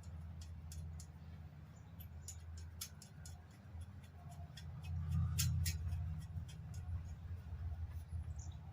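Scattered sharp metallic clicks and taps from hand tools and metal parts being handled, irregular, over a steady low hum.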